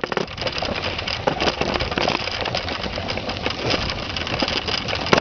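Bicycle rolling fast along a dirt trail strewn with dry leaves: a steady rumble with dense crackling and rattling from the tyres and bike.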